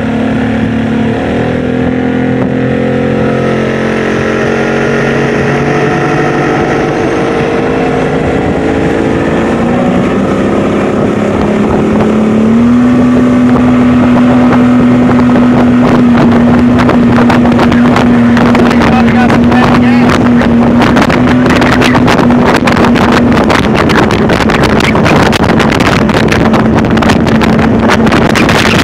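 Outboard motor driving a flat-bottomed aluminum boat, its engine note rising steadily for the first dozen seconds and then holding level and louder at cruising speed. Wind buffets the microphone through the second half.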